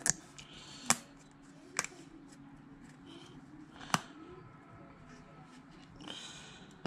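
Quiet room tone broken by four short, sharp clicks in the first four seconds.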